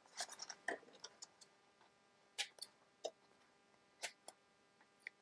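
Faint, scattered small clicks and brief paper rustles as a metal paper clip is slid onto a folded book-page document holder.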